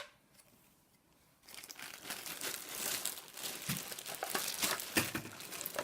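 A sharp click right at the start, then after about a second and a half of quiet, plastic packaging crinkling and rustling, with many small clicks, as it is handled.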